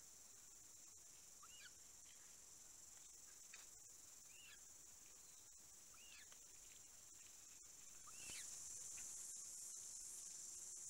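Faint steady, high-pitched insect buzz that grows louder about eight seconds in, with about four short chirps from a small bird spaced a couple of seconds apart.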